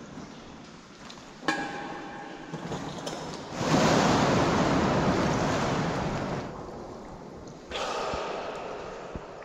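A scuba diver in full kit drops into deep water with a big splash about three and a half seconds in, the water churning for a few seconds after. A sharp knock comes just before, and a second, shorter rush of splashing noise near the end.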